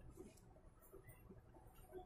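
Near silence: room tone with a few faint small handling sounds.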